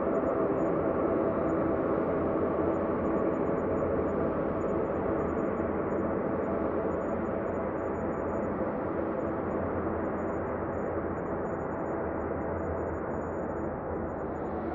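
Ambient space drone: a steady, dense hum of many held tones over a low rumble, easing slightly quieter toward the end.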